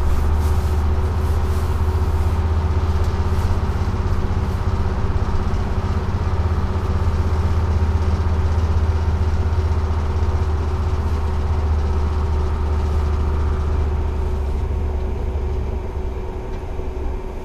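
Detroit Diesel 6-71 two-stroke engine of a 1948 GMC Silversides bus, heard from inside the cab while driving: a steady low drone with a steady whine over it, dropping in level near the end.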